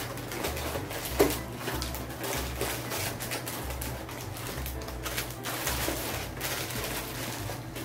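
Plastic snack wrappers crinkling and rustling as packets are handled and moved in and out of a cardboard box, with one sharper tap about a second in.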